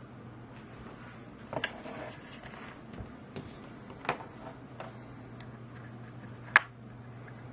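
About six irregular sharp clicks and taps, the loudest near the end, over a steady low electrical hum.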